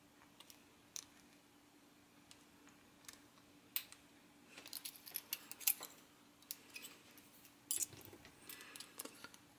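Faint, irregular small metallic clicks of a lock pick and thin tension wrench working the pin stack of a Corbin rim cylinder as the picker tries to set the pins, with a flurry of quick clicks around the middle. A few handling clicks come near the end as the lock is shifted in the hand.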